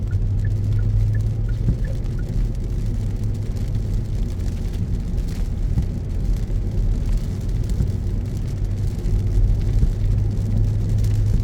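Car driving on wet city roads in heavy rain: a steady low hum of engine and tyres with an even wash of rain and road-spray noise. A faint, evenly spaced light ticking runs through the first couple of seconds.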